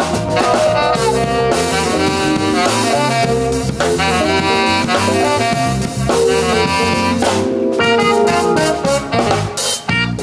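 A small live jazz band playing: a saxophone leads over an electric keyboard, a drum kit and an electric guitar.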